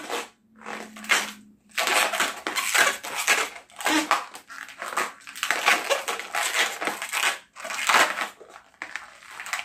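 Long latex modelling balloon being twisted by hand into small round bubbles: the rubber rubs and squeaks against itself and the fingers in a string of irregular rasps with short pauses.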